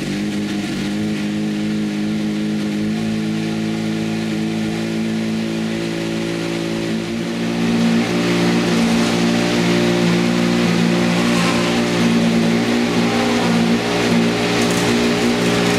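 Jaguar XJR-16's 3.0-litre twin-turbo V6 racing engine running steadily while it warms up, a little louder from about halfway.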